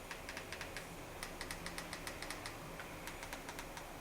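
Buttons on a Xiaomi Mi TV Stick remote control being pressed over and over: a quick, irregular run of light clicks.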